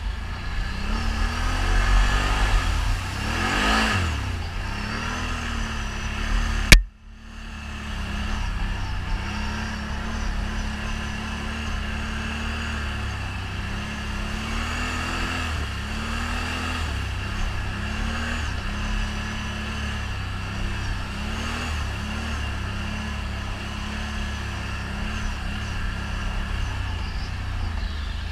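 ATV engine running and revving, its pitch rising and falling with the throttle. About seven seconds in there is one sharp knock, and the engine sound drops out for a moment after it.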